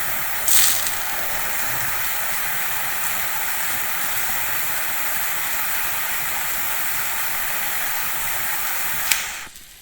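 Flame hissing steadily as it burns a milk candy, with a brief louder flare about half a second in. Near the end there is a sharp click and the hiss dies away.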